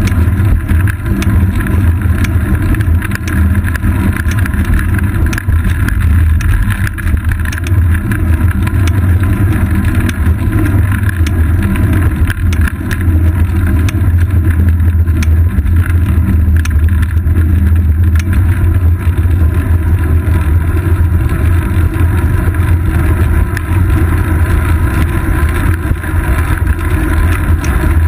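Steady low rumble of wind and road vibration picked up by a GoPro camera mounted on a moving bicycle's seat post, with many small ticks and rattles.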